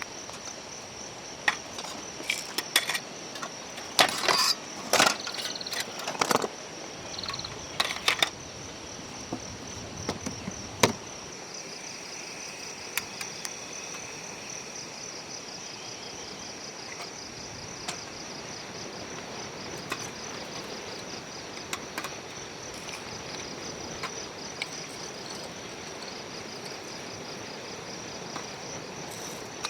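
Steady high-pitched insect chorus, with a second, rapidly pulsing insect call joining about twelve seconds in. Several sharp clicks and knocks, louder than the chorus, come in the first ten seconds or so.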